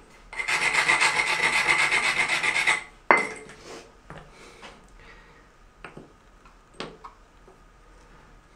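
A rubbing stone rasped rapidly back and forth across the cut edge of a mosaic tile for about two and a half seconds, dulling the sharp edge left by the cut. Then a sharp click and a few lighter clicks.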